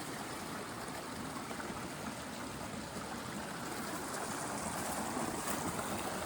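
A mountain stream flowing steadily, its water rushing evenly.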